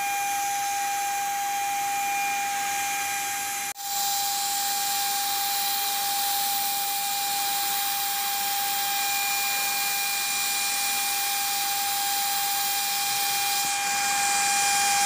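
iBELL SG80-27 floor-based HVLP spray gun running and spraying paint: a steady hiss of air and paint mist over a constant high whine from its blower motor. The sound breaks off for an instant about four seconds in, then carries on unchanged.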